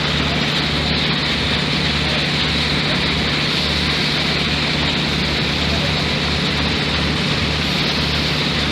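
Concrete production-line machinery running steadily: a constant mechanical din over a low hum with a regular low throb.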